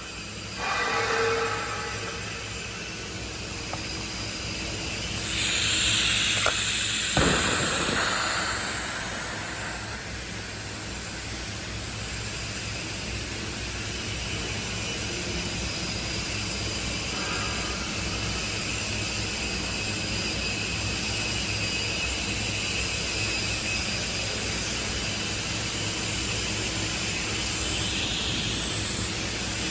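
Steady hissing noise over a low hum, with a louder rush of hiss about five to eight seconds in and a single sharp tick near its end.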